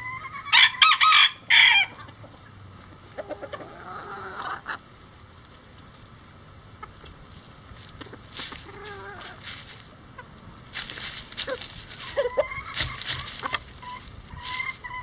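Bantam rooster crowing once, high and wavering, in the first two seconds, followed by bantam chickens clucking and calling on and off.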